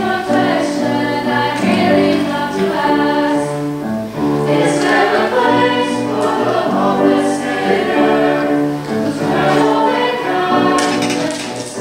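Small mixed-voice vocal ensemble singing unaccompanied in close harmony, with held chords that shift every second or so.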